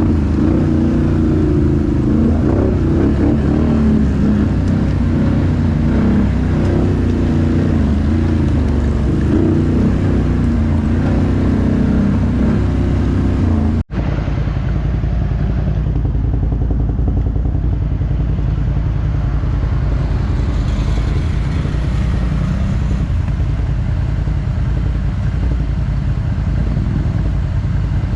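ATV engine running while riding, its note wavering with the throttle. A sudden cut about halfway through switches to a steadier, duller engine sound.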